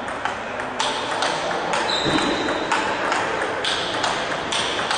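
Table tennis rally: the ball clicking sharply off rackets and table in quick pairs, over a steady murmur of voices in the hall. A brief high squeak about two seconds in.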